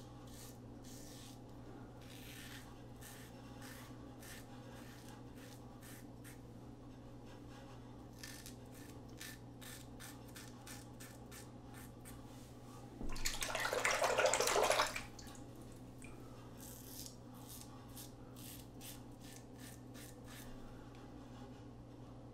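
Supply 2.0 single-edge razor, with a Schick injector blade in its most aggressive plate, scraping through three days of stubble in many short strokes. About 13 seconds in there is a two-second rush of running water.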